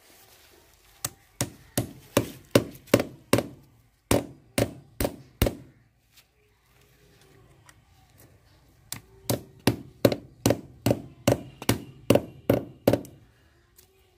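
Small hammer nailing a saddle clip that holds a PVC earthing pipe to a concrete wall: two runs of about a dozen sharp blows each, roughly three a second, with a pause of a few seconds between.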